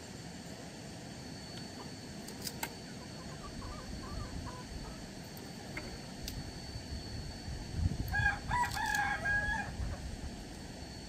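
A rooster crows once, about eight seconds in: a single drawn-out call lasting about a second and a half. A couple of light clicks come earlier, about two and a half seconds in.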